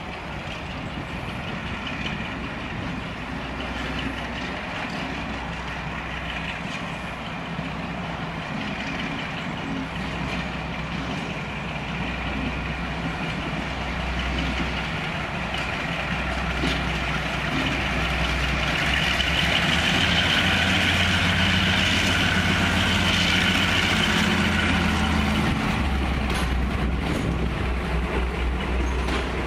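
Class 42 Warship diesel-hydraulic locomotive running as it approaches and passes with a train. Its steady engine note grows louder throughout, with a higher whine at its loudest about two-thirds of the way through, and the coaches begin rolling past near the end.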